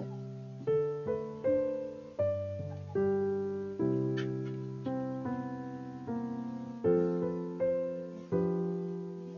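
Background piano music: notes and chords struck about once a second, each ringing out and fading.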